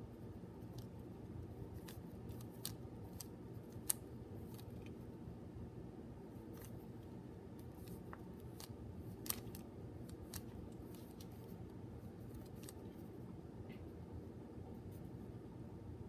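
Plastic layers of a Qiyi mini 3x3 keychain speed cube clicking as they are turned by hand: scattered quick clicks, with two sharper ones about four and nine seconds in.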